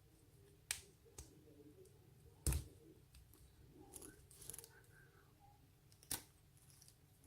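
A few separate sharp clicks and taps from a small lock and its key being handled, the loudest about two and a half seconds in, with faint rustling in between.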